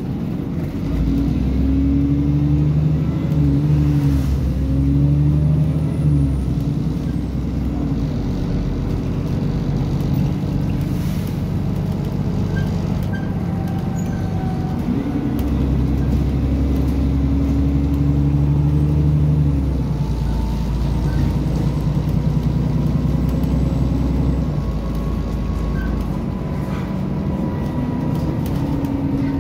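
Engine of a bus on the move, heard from inside the passenger saloon, over road rumble. The engine note is strong and climbing for the first few seconds, drops back for several seconds, then pulls strongly again for several seconds before easing off near the end.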